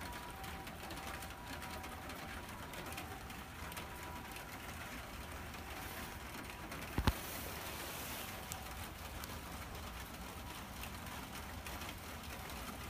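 A calico cat eating from a small metal dish, with fast, irregular chewing and clicking at the dish. One sharp knock about seven seconds in.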